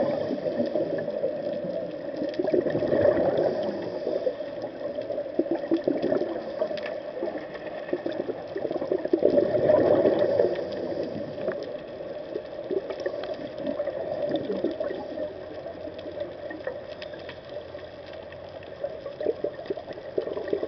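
Muffled underwater gurgling and bubbling from a scuba diver's exhaled breath, swelling louder a few seconds in, about halfway through and again near the end.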